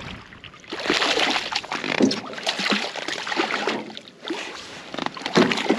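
Water splashing in irregular bursts at the surface beside a boat as a small hooked pike is brought in, with a short lull about four seconds in.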